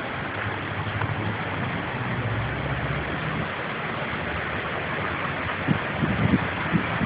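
Steady rushing of a creek swollen by storm runoff. A low hum comes and goes in the first few seconds, and a few short thumps come near the end.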